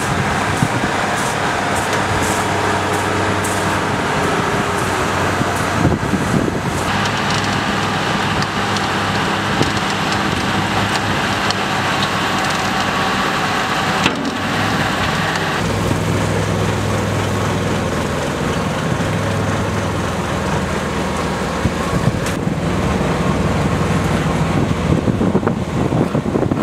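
Diesel engines of asphalt-paving machinery running steadily: a tracked asphalt paver laying asphalt, with a road roller at work. The engine note shifts abruptly a few times.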